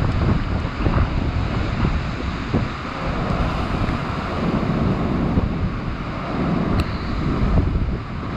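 Heavy ocean surf breaking against rocks and sea cliffs, with strong wind buffeting the microphone and rumbling in the lows.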